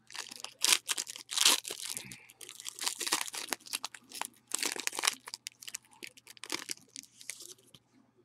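Packs of trading cards being torn open: foil wrappers ripping and crinkling in quick irregular bursts, the loudest tear about a second and a half in, dying away near the end.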